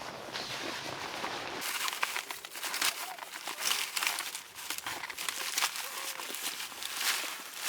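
Footsteps crunching in light, fresh snow at a walking pace, about two steps a second.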